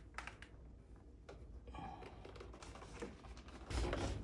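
Handling noise from a servo-fitted Novation Launchkey MIDI keyboard being turned over by hand: a few light clicks and knocks of its plastic case, then a louder low bump and rustle near the end as it settles onto a towel.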